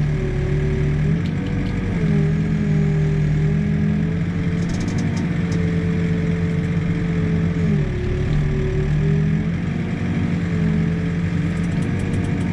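Backhoe diesel engine and hydraulics running steadily under digging, heard from the operator's cab, with the engine note dipping briefly about a second in and again around eight seconds.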